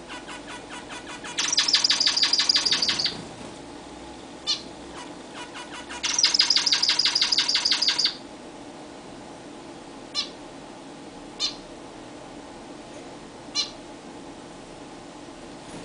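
Zebra finches calling: two bouts of rapid repeated high notes, each about two seconds long, then four short single calls spaced out.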